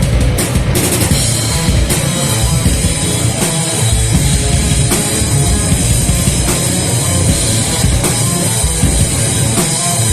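Live heavy metal band playing a loud, dense passage, with a pounding drum kit and constant cymbal wash under the rest of the band.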